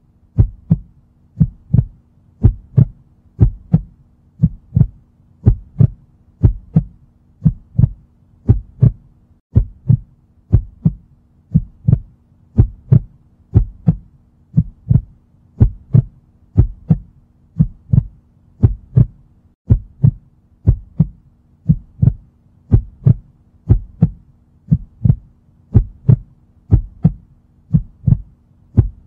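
Heartbeat sound effect: a steady lub-dub, two low thumps in quick succession repeating about once a second at an even rate.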